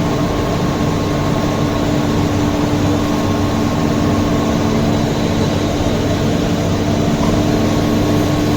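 Chiller water pump with a newly replaced bearing, its electric motor running with a constant hum and a steady tone.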